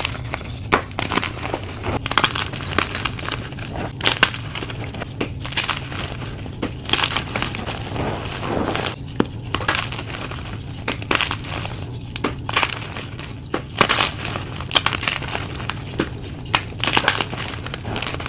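Blocks of dyed chalk crushed and crumbled by hand: a dense, irregular run of crisp crunches and crackles as pieces snap and break down into powder.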